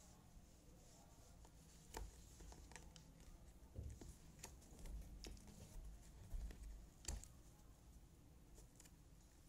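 Faint clicks and soft taps of jigsaw puzzle pieces being handled and pressed into place on a tabletop, with a few dull thumps of hands against the table; the sharpest click comes about seven seconds in.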